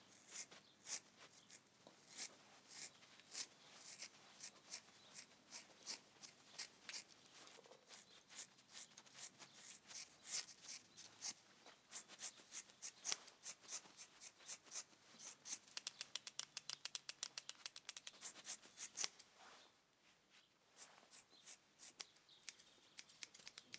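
Scissors snipping through hair, one sharp snip after another; in the middle the snips come fast, about five a second, then they thin out after a short pause.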